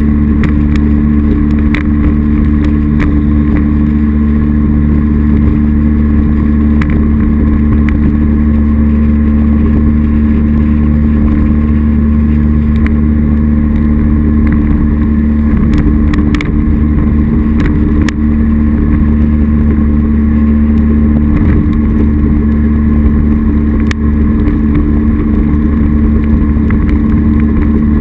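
A 2001 North River Sportster jet boat with a 240 Sport Jet drive running steadily at cruising speed, its engine a constant hum that does not rise or fall, heard from the windshield.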